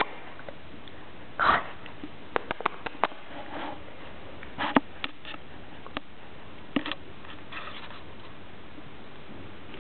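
Pomeranian puppy sniffing in a few short puffs, with scattered sharp clicks in between.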